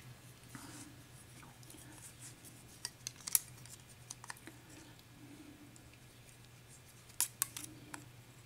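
Scattered small metallic clicks and light scraping as a mortise lock cylinder is handled and worked open to get at its top pins, a few sharp ticks clustered about three seconds in and again near the end.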